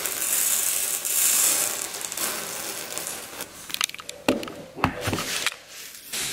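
Tiny plastic sugar beads being handled and sifted: a steady hissing rustle at first, then a run of irregular crisp clicks and crunches from about three and a half seconds in.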